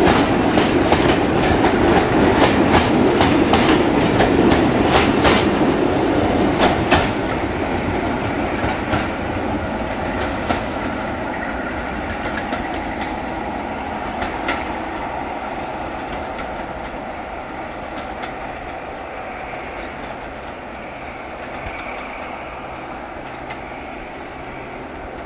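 BR Class 45 'Peak' diesel locomotive's Sulzer twin-bank 12-cylinder engine running under power as it hauls a train away, with wheels clicking over rail joints during the first ten seconds or so. The sound fades steadily as the train draws away.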